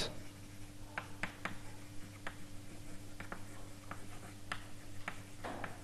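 Chalk writing on a blackboard: a scatter of short, irregular taps and clicks over a faint steady room hum.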